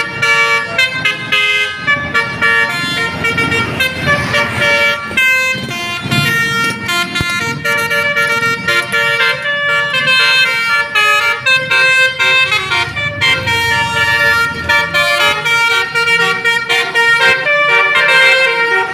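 Indonesian bus 'telolet basuri' multi-tone air horn playing a quick tune of honked notes that change pitch every fraction of a second, over a low rumble.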